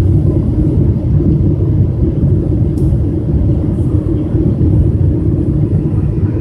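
Boeing 777-200 cabin noise on the descent approach: the steady low rumble of the engines and the airflow over the airframe, heard from inside the cabin.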